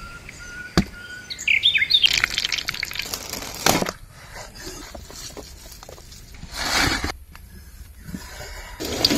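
Birds chirping, together with a cleaver chopping raw chicken breast on a wooden board in a series of knocks and cuts.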